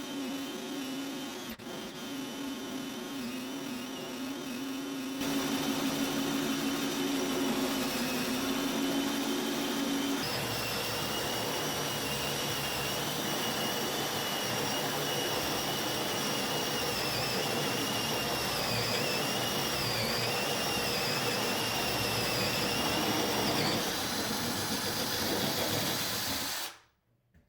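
Ryobi drill turning a 2-inch hole saw through a 2x4 via a Milescraft Drill90PLUS right-angle attachment: a steady motor whine whose pitch wavers as the saw loads up in the wood. The sound changes abruptly about five and ten seconds in, and cuts off sharply near the end.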